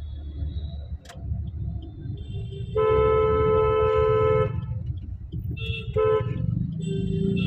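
Road traffic rumbling with vehicle horns: one long honk of about a second and a half about three seconds in, a short honk about six seconds in, and another starting near the end.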